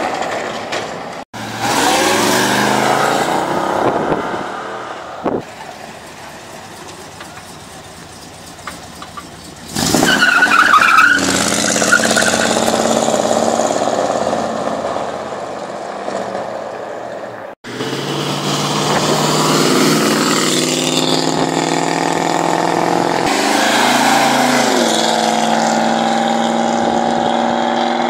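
American V8 car engines in several cut-together clips, pulling away and accelerating. About ten seconds in, one engine suddenly gets much louder. Near the end, an engine note climbs steadily as a car accelerates.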